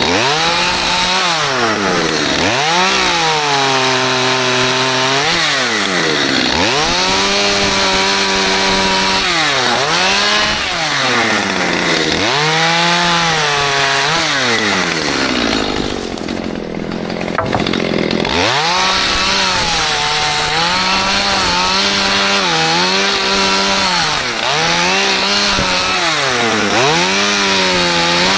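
Stihl MS211 two-stroke chainsaw cutting small trees. It revs up to full throttle through each cut and drops back toward idle between cuts, many times over, with a short lull about two-thirds of the way in.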